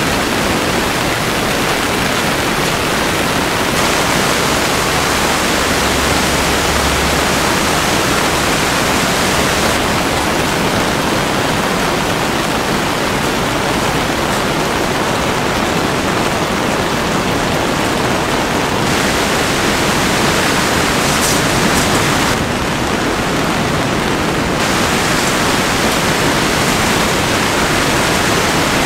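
Heavy rain falling steadily: a dense, even hiss that shifts slightly in tone several times.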